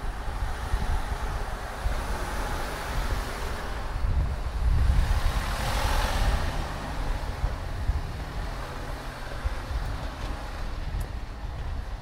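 A car drives past close by on a narrow street, its engine and tyre noise swelling to a peak about six seconds in and then fading away, over a steady low rumble.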